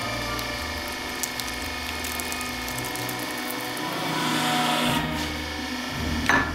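Hydraulic press running steadily as its ram crushes a foil-wrapped chocolate Santa and foil-wrapped chocolates flat, with a few sharp snaps of breaking chocolate and foil a second or two in. The machine grows louder for about a second around four seconds in as the platens close, and a short loud rush of noise comes near the end.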